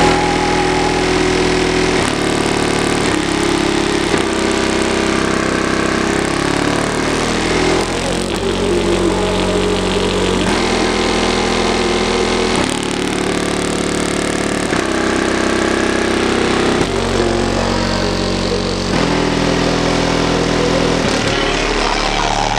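Loud bass-heavy music played through a car stereo with two 18-inch DC Audio XL subwoofers on an AudioQue AQ2200 amplifier, heard from beside the open car window. Sustained notes change every second or two.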